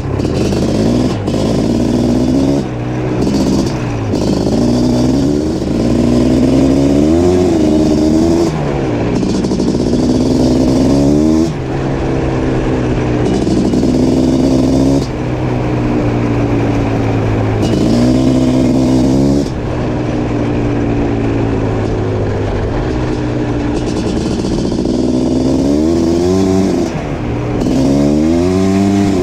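Suzuki LT500R Quadzilla's 500cc liquid-cooled two-stroke engine with an FMF Fatty expansion chamber, revving up and easing off again and again. Its pitch climbs in repeated pulls and falls back sharply each time the throttle is shut, with brief drops in loudness.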